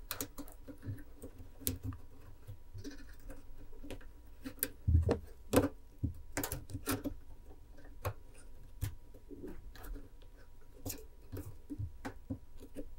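Thin craft wire being wrapped and cinched around a heavier wire frame with pliers: irregular small metallic clicks and ticks, with a few louder knocks about five to seven seconds in.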